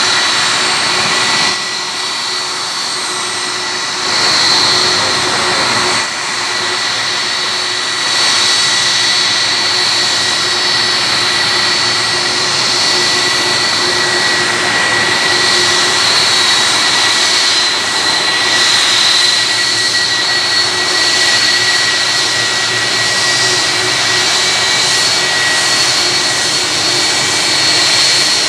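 Boeing 757's twin jet engines running at taxi power as the airliner rolls toward the runway: a steady, loud rush with a high, even whine, swelling slightly a few seconds in.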